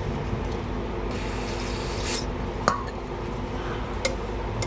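Paper shop towel rustling and rubbing as greasy brake pad hardware is wiped clean, loudest for about a second starting a second in. A sharp click comes a little past halfway and a smaller one near the end, over a steady low hum.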